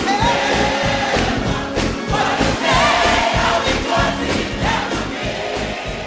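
Gospel music: a choir singing over a band with a steady beat.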